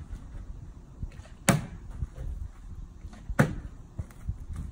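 Plastic water bottle knocking down onto a concrete stepping stone during bottle flips: two sharp knocks, about a second and a half in and again about three and a half seconds in, with a few lighter taps between.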